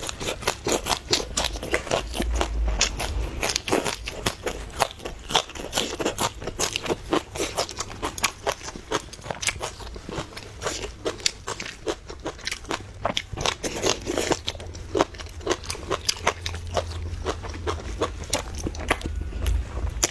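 Close-miked chewing and biting: a dense run of crunching and wet mouth clicks.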